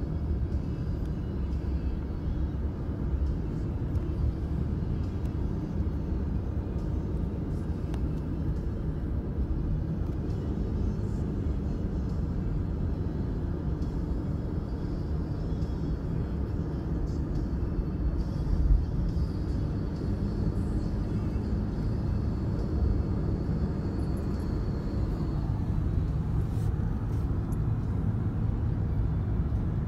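Steady low road and engine rumble heard inside a moving car's cabin. A single brief thump a little past halfway.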